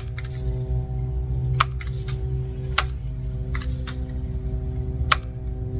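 A steady low hum with several even pitches, like a running motor, with four sharp clicks spaced irregularly through it.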